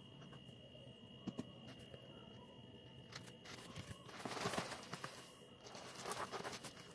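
Plastic packaging rustling and crinkling as it is handled, with a few small clicks. The loudest rustling comes about four to five and a half seconds in, with a shorter burst near the end.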